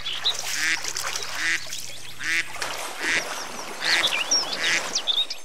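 White domestic ducks quacking over and over, a short rasping call about every second, with small higher chirps among the calls.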